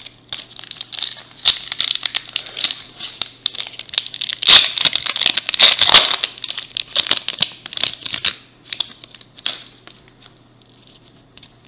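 Foil wrapper of a Topps Opening Day baseball card pack crinkling and tearing as it is pulled open by hand. It is loudest around the middle, and the crinkles die away over the last few seconds.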